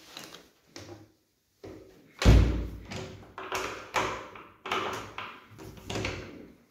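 Interior door's lever handle and latch worked over and over: a run of sharp clacks and knocks, the loudest a heavy thud about two seconds in.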